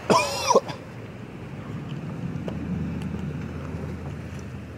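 A brief shout, then a vehicle engine rumbling at a distance as it drives through a flooded mud hole, the rumble swelling a little in the middle. Wind on the microphone.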